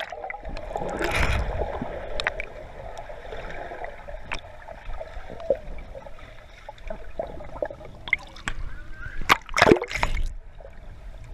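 Swimming-pool water sloshing and gurgling as swimmers move through it, with a few louder splashes about nine seconds in.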